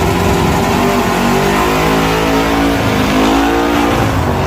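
Race car engine at high throttle, loud and steady, its pitch wavering up and down through the middle.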